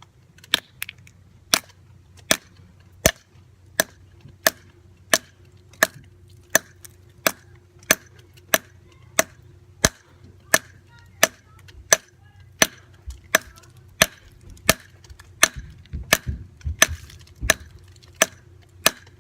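A long run of sharp, evenly spaced blows, about three every two seconds, as a dead AA battery is struck over and over and smashed to pieces; a few duller thuds come in near the end.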